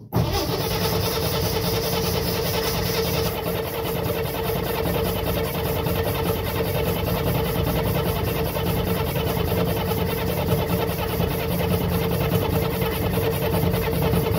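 1964 Corvair's air-cooled flat-six being cranked over on its starter with the ignition coil disconnected, so it turns over steadily without firing: the starter is spinning the engine to drive the new mechanical fuel pump and prime fuel through it. The cranking starts suddenly and keeps an even, fast rhythm.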